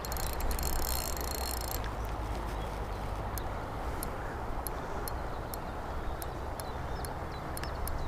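Steady rush of a shallow river flowing over stones, with a low rumble underneath and scattered sharp light ticks. A brief high buzz sounds in the first couple of seconds.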